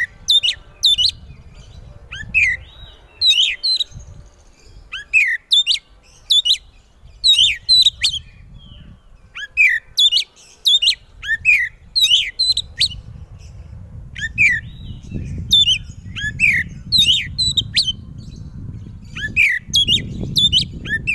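Oriental magpie-robin singing loud: repeated short phrases of sharp, high whistled notes with quick pitch sweeps, coming about once a second with brief gaps. A low rumble sits underneath, strongest near the end.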